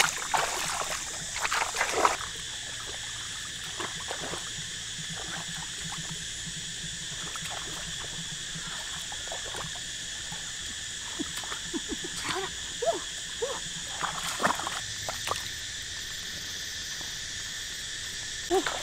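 Light splashing and trickling water with scattered clicks, over a steady high-pitched background chorus.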